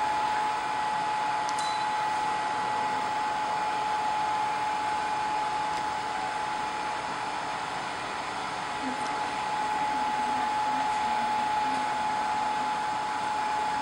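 Hot-air heaters of a BGA rework station blowing steadily during a heating cycle: an even rush of air with a steady whine.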